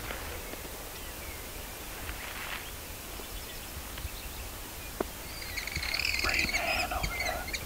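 A bird calling near the end, a burst of rapid notes lasting about two seconds, over a steady low rumble of wind. There is a single sharp tap about five seconds in.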